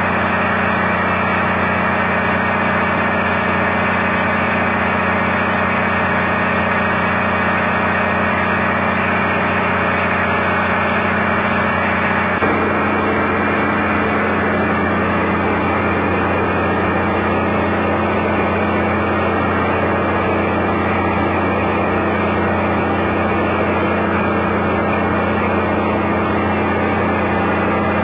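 Diesel engine running steadily at constant speed; its note changes a little about twelve seconds in.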